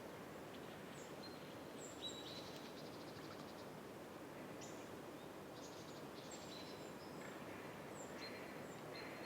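Small birds calling outdoors: scattered short, high-pitched notes that drop in pitch, with a quick rattling run of notes about two and a half seconds in, over a steady background hiss.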